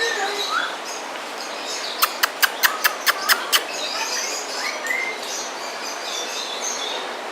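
Birds chirping in short gliding calls over a steady background hum of the enclosure, with a quick run of about eight sharp clicks about two seconds in.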